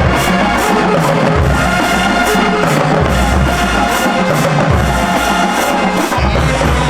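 Background music with deep bass notes and a steady drum beat.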